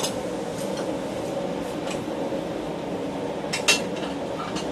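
Sharp metal clinks of blacksmith tongs and steel bar knocking against a bench vise, the loudest a quick double clink about three-quarters of the way through, over a steady hum.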